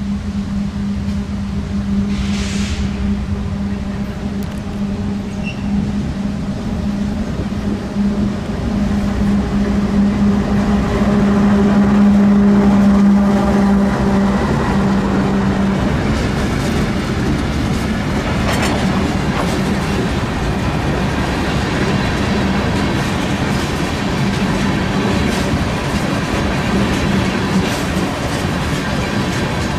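GREX conveyor ballast work train passing: a steady diesel locomotive hum, loudest about twelve seconds in, drops away about sixteen seconds in. After that come the rolling wheels of the cars on the rails, with scattered clicks.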